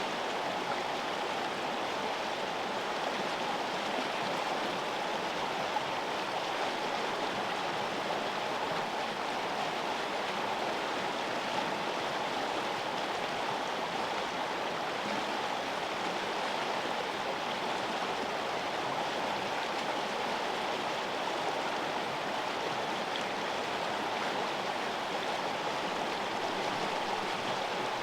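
River water flowing: a steady, even rush of running water that holds the same level throughout.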